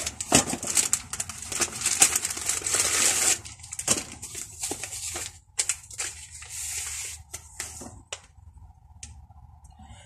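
Clear plastic packaging crinkling and rustling as a replacement side mirror is pulled from its cardboard box and unwrapped, with many sharp crackles. The handling is busiest in the first few seconds and quietens over the last two.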